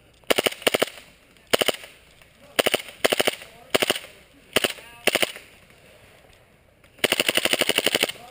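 Airsoft rifle firing on full auto in short bursts of rapid, evenly spaced shots, then a longer burst of about a second near the end.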